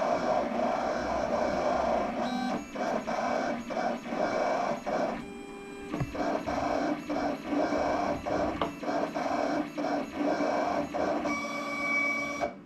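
USCutter vinyl cutter plotting heat-transfer vinyl: its stepper motors whir in short stop-start runs with brief pauses as the blade carriage jumps from one letter to another. Near the end a steadier whine as the vinyl is fed back, then it stops suddenly.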